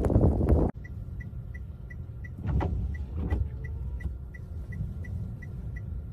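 Wind buffeting the microphone, cut off abruptly less than a second in. Then a car's interior: a steady low engine rumble with the indicator or hazard-light relay ticking about three times a second.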